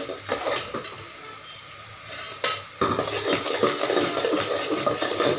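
Metal spoon stirring and scraping through jaggery syrup boiling down in an aluminium pot, over a steady sizzle. The scraping eases off for about a second and a half, then picks up sharply about two and a half seconds in.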